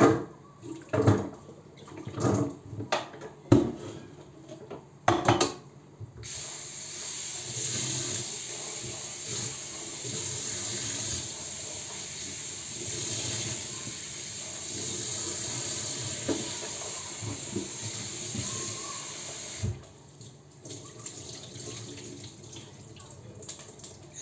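A few sharp knocks and clatters, then a kitchen tap running steadily into the sink for about thirteen seconds as cooked chickpeas are rinsed, shut off abruptly; a few light clicks follow.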